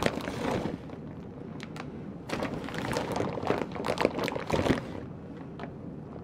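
Rustling and light knocks from ingredients being handled and moved on a kitchen counter during sandwich assembly, busiest from about two seconds in to near five seconds.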